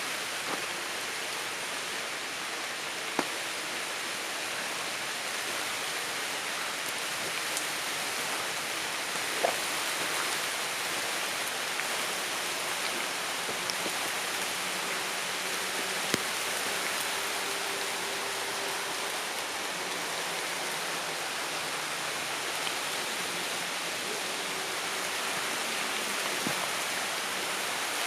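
Light rain falling on tree leaves: a steady, even patter, with a few louder single drops or taps standing out.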